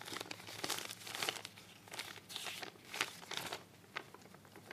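Sheets of paper crinkling and rustling as a folded letter is unfolded by hand, in irregular bursts that die away after about three and a half seconds, with one small click near the end.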